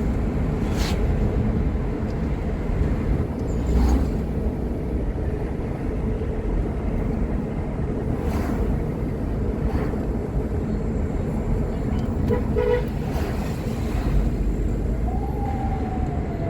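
Road traffic noise: a steady low rumble of vehicle engine and tyres, with a short car horn toot late on.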